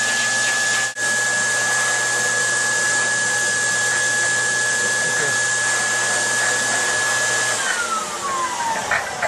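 Pet grooming dryer blowing air with a steady whine. About three-quarters of the way through it is switched off, and the whine falls steadily as the motor spins down.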